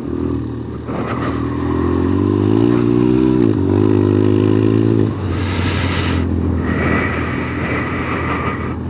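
BMW GS adventure motorcycle engine accelerating on a forest gravel track. The revs climb, dip briefly at a gear change about three and a half seconds in, and climb again until the throttle closes about five seconds in. A short rush of wind and gravel noise follows, then steady running.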